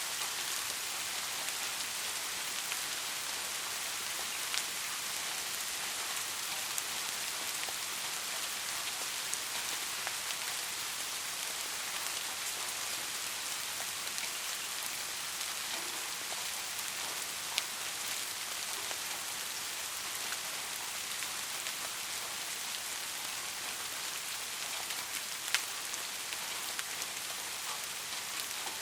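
Steady rain falling, an even hiss with now and then a single louder drop hitting close by.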